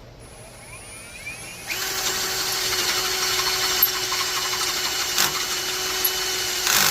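Battery drill spinning up about a second in, then running steadily under load as the bit cuts through steel, with a louder burst near the end.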